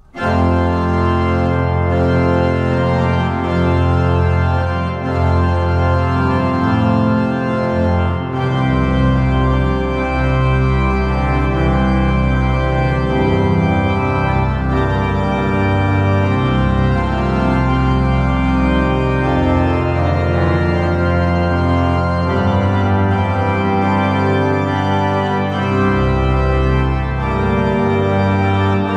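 Rémy Mahler pipe organ played on full organ with pedals, in a six-voice early-Baroque polyphonic setting. The first chord enters suddenly out of silence, and long held bass notes in the pedal sit under moving upper voices.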